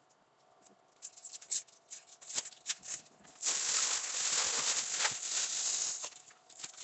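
Plastic packaging on a new refrigerator crinkling and rustling as it is handled and pulled away, with scattered crackles and a longer, denser rustle in the middle.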